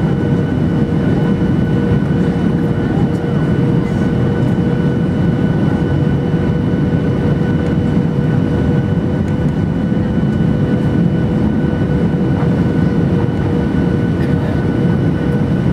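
Cabin noise of a Boeing 737-800 on final approach, heard from a window seat beside its CFM56-7B engine: a steady deep rumble of engine and airflow, with a few held tones whining over it.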